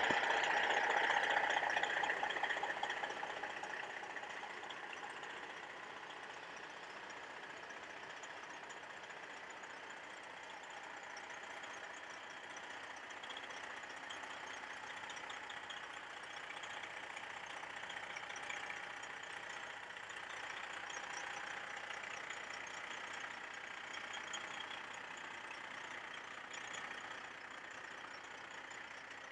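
Diesel engine of a Freightliner M916A3 6x6 military semi truck running, loudest in the first couple of seconds, then dropping away to a steady lower level.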